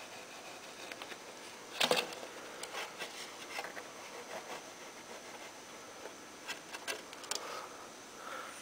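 Faint handling noises of a foam model airplane and a small bottle of CA glue: scattered light clicks and rubs, with one sharper knock about two seconds in.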